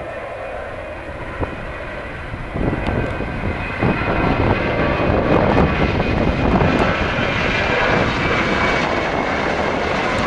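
Jet engines of a Southwest Airlines Boeing 737 (CFM56) running at takeoff power as the airliner rolls down the runway and lifts off. The roar grows louder about two and a half seconds in and again near four seconds, then holds steady.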